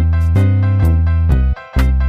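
Background music with a strong bass line and a steady beat about twice a second, cutting out briefly about one and a half seconds in.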